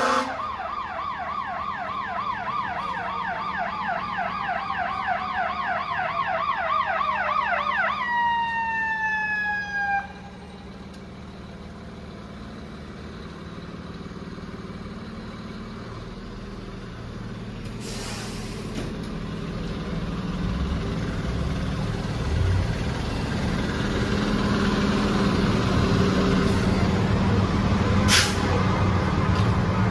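Fire truck siren on a fast yelp over a slowly falling wail, which winds down and stops about ten seconds in. The truck's engine then runs steadily, growing louder toward the end as the truck moves off.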